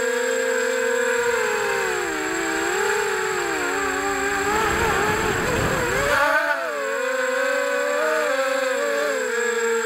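FPV quadcopter's brushless motors and propellers whining, heard from the onboard camera, the pitch falling as throttle is eased and rising again about six and a half seconds in. A low rushing noise swells in the middle while the pitch is lowest, and a faint steady high-pitched whine runs underneath.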